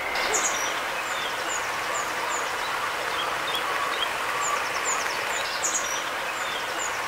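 Songbirds calling: a run of short, high, downward-sliding notes repeated about twice a second, with two brighter bursts of song, one just after the start and one near the end, over a steady hiss.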